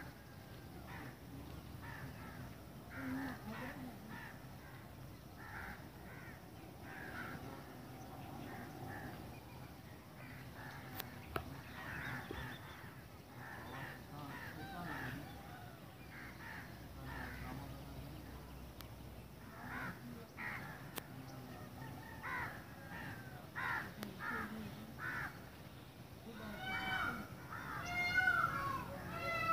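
Birds calling outdoors: short, harsh calls repeated throughout, and a denser run of chattering calls near the end.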